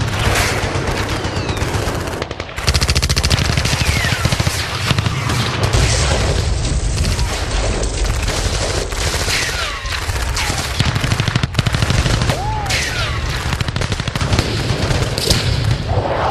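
War sound effect of sustained machine-gun fire: many overlapping rapid shots, with a brief lull a little over two seconds in. Several falling whistling tones sound over the gunfire.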